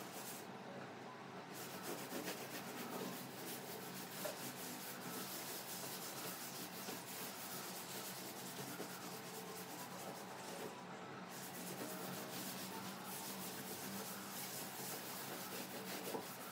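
Hand scrubbing of a small tabletop with a cloth or sponge: a steady, rough rubbing made of many quick back-and-forth strokes. It pauses briefly about a second in and again about two-thirds of the way through.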